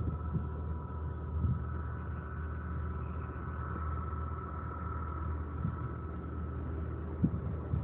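A motor running steadily: a low, even hum with a faint steady whine above it.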